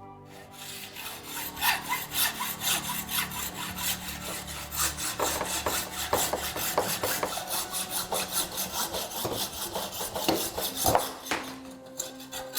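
Hand saw cutting through a bicycle's carbon fork steerer tube held in a saw guide, in quick, steady back-and-forth strokes that stop about a second before the end.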